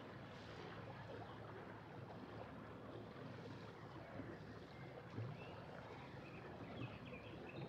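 A yacht's engine running slowly with a steady low hum, and water moving along the hull. A few short high chirps come in near the end.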